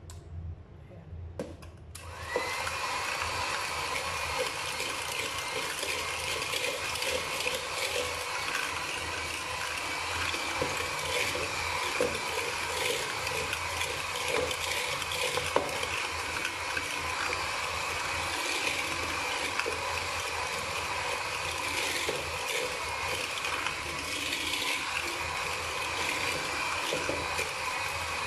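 Electric hand mixer switched on about two seconds in and running steadily with a motor whine, its beaters whisking butter, sugar and egg in a plastic bowl with scattered small clicks.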